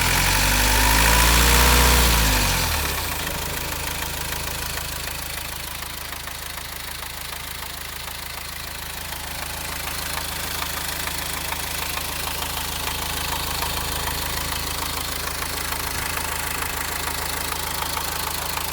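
Subaru Impreza 2.0 boxer diesel engine, with a brief rev that rises and falls in the first few seconds, then idling steadily with the clattering noise under question.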